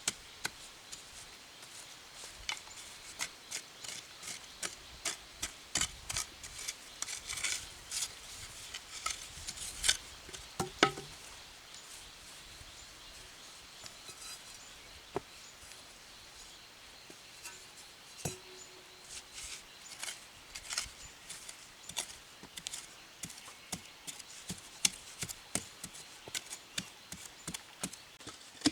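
Irregular sharp knocks and chopping strikes, about one or two a second, thinning out for a few seconds in the middle.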